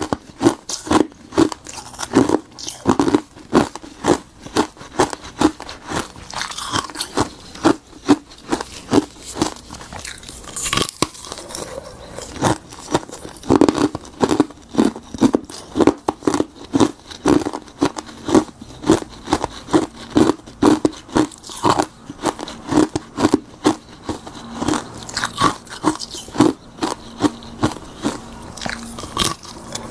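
Ice frozen from tartary buckwheat tea being bitten and chewed close to the microphone: a continuous run of loud, crisp crunches, a few every second.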